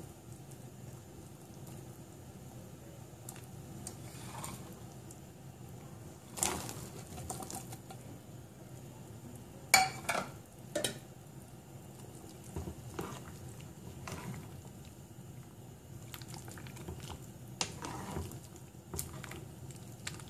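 Beef broth bubbling steadily at a boil in a metal pot, broken by a few splashes and sharp clinks and knocks of a utensil against the pot as chopped vegetables go in and are stirred. The loudest is a single metal clink about ten seconds in.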